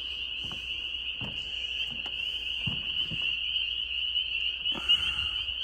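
A noisy chorus of spring frogs calling together, making a steady high trilling drone without a break. A few soft knocks sound through it, and one short sharper sound comes near the end.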